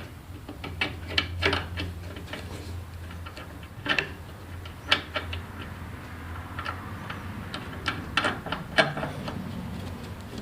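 Scattered light clicks and taps as a nut is threaded by hand onto a table saw's arbor to hold a plywood sanding disc, over a low steady hum.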